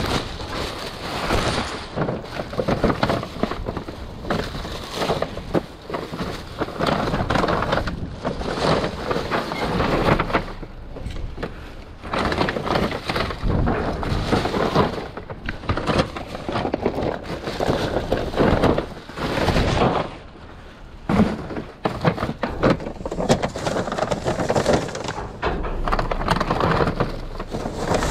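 Plastic trash bags rustling and crinkling loudly as gloved hands rummage through them, in stretches with a couple of brief pauses.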